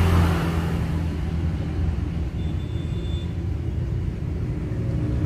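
Steady low rumble with a faint hum, and a brief thin high tone about two and a half seconds in.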